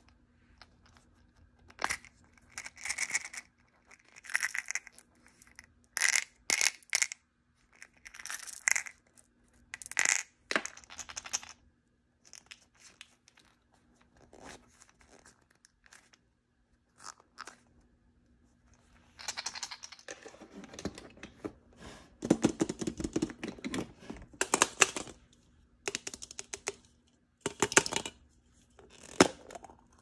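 Blind-bag packaging being torn open and crinkled by hand: a string of short rips and rustles with small clicks between, and a longer, denser stretch of rustling about two-thirds of the way through.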